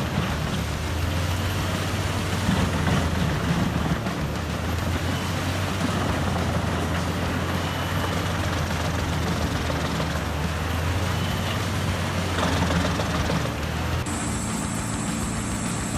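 Large wood chipper running steadily: a low hum under a haze of mechanical noise. About two seconds before the end the sound changes abruptly and a thin, high steady whine comes in.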